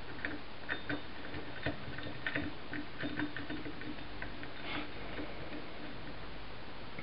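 Faint, irregular light clicks and taps of small metal engine parts and tools being handled on a workbench.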